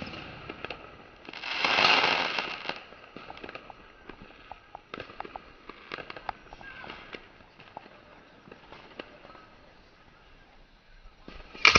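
Fireworks going off: a loud rushing burst about a second and a half in, then scattered sharp pops and crackles, and a sharp bang near the end.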